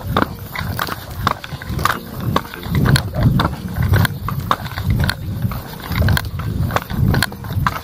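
Footsteps of a hiker walking up a steep paved lane, about one or two a second, with heavy breathing close to the microphone and scattered scuffs and clicks.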